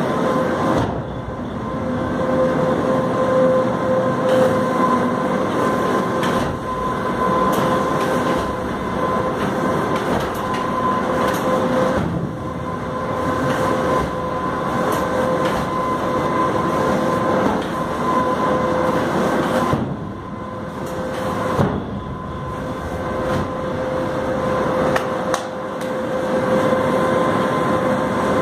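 Semi-automatic cement bag loading machine running inside a railway goods wagon: a steady mechanical din with a constant hum, broken by a few sharp knocks.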